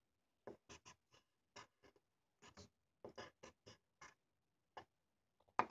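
Erasable colored pencil scratching on paper in short, separate strokes as small shapes are drawn, faint, one to three strokes a second. A louder, sharper sound comes right at the end.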